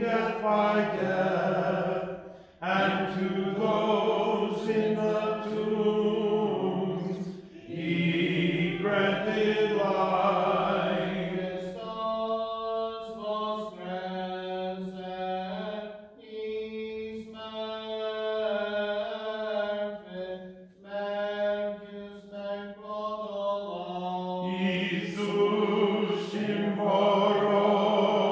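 Unaccompanied Byzantine-rite liturgical chant of a moleben to the Mother of God, sung in long held phrases with short breaks between them.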